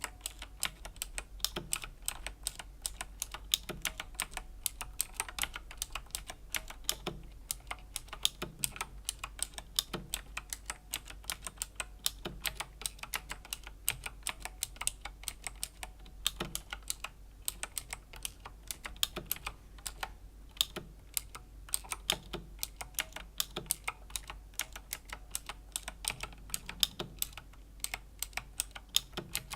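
Slow, steady typing on a Razer BlackWidow Chroma V2 mechanical keyboard with clicky Razer Green switches: a continuous run of sharp key clicks, several a second.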